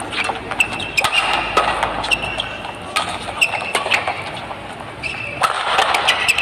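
Badminton doubles rally: rackets strike the shuttlecock in quick, sharp cracks, and players' shoes give short squeaks on the court mat.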